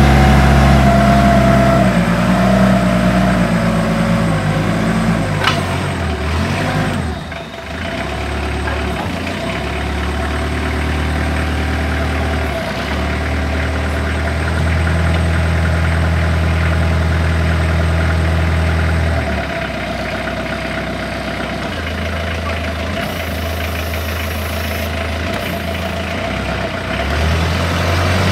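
TCM 3-ton diesel forklift's engine running as the truck drives, its engine speed changing in steps several times. The engine briefly eases off about seven seconds in.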